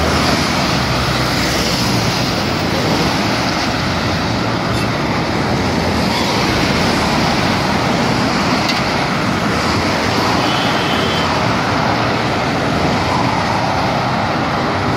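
Steady road traffic noise heard from a vehicle driving along a busy highway: an even rush of tyres and engines with no distinct events.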